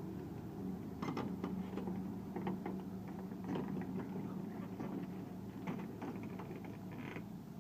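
Excavator diesel engine running steadily, with scattered short clicks and knocks over it.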